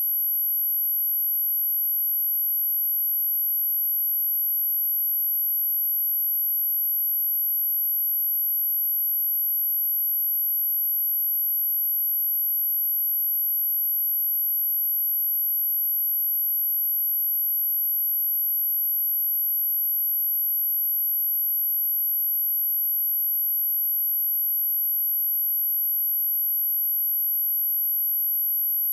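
A steady, very high-pitched 11746 Hz sine test tone, held at one pitch and level throughout. It is a speaker test tone, also played to shake water and dust out of a speaker.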